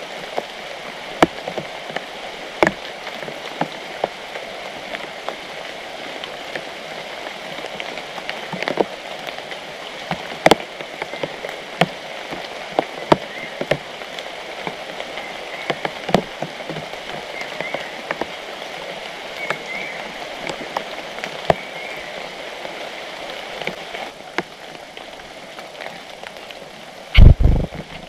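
Steady rain on foliage, with sharp single drops tapping at irregular intervals. A loud, low thump comes about a second before the end.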